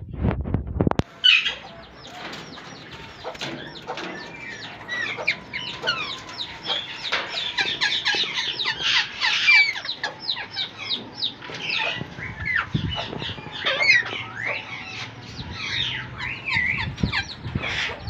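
A flock of Indian ringneck parrots calling together, many short screeching and chattering calls overlapping without a break. A low rumble with knocks sits under the first second.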